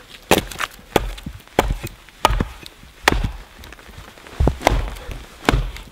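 Hatchet chopping into a split piece of dead, dry cedar, trimming off its bark side: about seven sharp strikes, most well under a second apart, with a pause of about a second past the middle.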